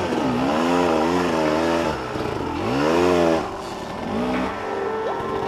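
Dirt bike engine revving, its pitch rising and falling several times in swells about a second long.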